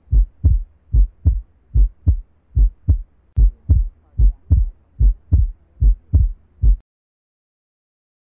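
Heartbeat sound effect: low paired lub-dub thumps, about 75 beats a minute, that stop suddenly about seven seconds in.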